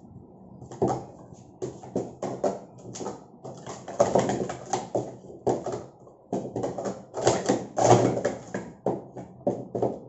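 Hollow plastic sport-stacking cups clattering and clicking in quick runs as they are rapidly stacked into pyramids and knocked back down during a timed cycle stack. The clatter starts about a second in.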